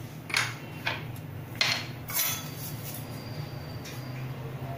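Small kitchen dishes and utensils being handled and set down, giving four light clinks and knocks in the first two seconds or so, over a steady low hum.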